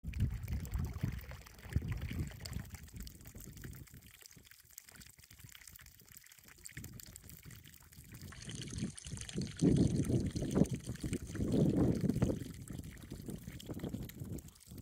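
Water trickling from the end of a rusty pipe into a full stock tank, a thin stream splashing steadily onto the surface. Low buffeting on the microphone comes and goes over it, loudest in the later half.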